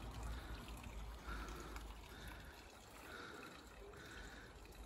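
Faint trickling of water at a garden pond, with a low rumble on the microphone for the first couple of seconds.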